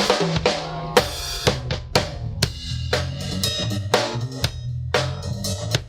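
Music with a drum kit playing a steady beat, about two strokes a second, over a bass line.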